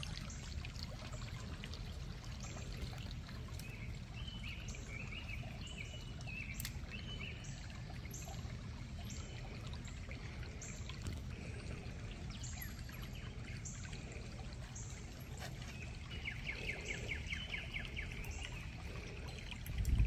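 Small creek trickling steadily, with songbirds chirping about four seconds in and again in a quick trill near the end.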